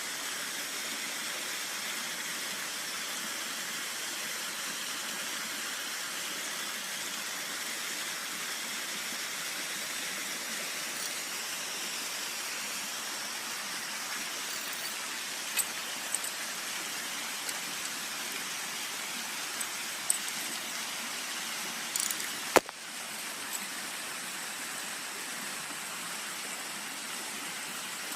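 Steady rush of flowing river water, with a few light clicks and knocks in the second half and one sharp click near the end, after which the rush is a little quieter.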